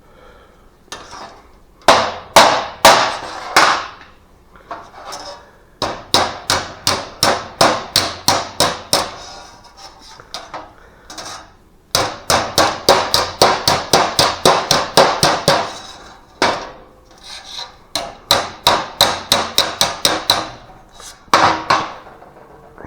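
Hammer tapping sheet metal, in quick runs of about three to four strikes a second broken by short pauses, as the edge of a car's taillight panel is worked into shape.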